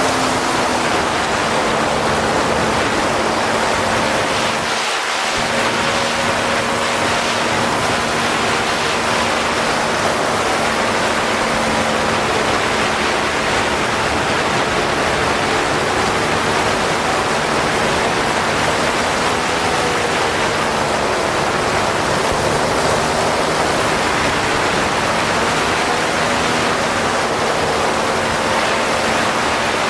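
Paramotor engine and propeller running steadily in flight, a constant drone under heavy wind rush on the microphone.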